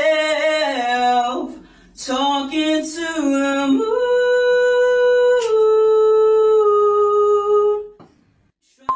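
A single voice singing with no accompaniment: a few short notes stepping down, a brief break about two seconds in, then long drawn-out held notes that drop a little in pitch, stopping about a second before the end.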